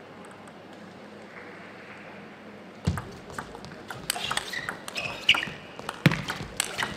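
Table tennis serve and rally: the plastic ball clicks sharply off the bats and table in a quick, irregular series. It starts about three seconds in, after a hush.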